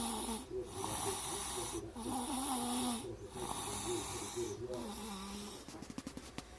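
A sleeping baby snoring: a pitched snore on each breath, several breaths a little over a second apart with short pauses between. Near the end the snoring quietens into a few quick clicks.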